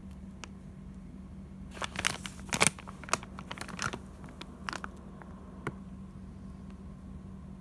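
Plastic corn starch packet crinkling and crackling as it is handled, in a dense run of sharp crackles for about two seconds, then a few more. A steady low hum lies underneath.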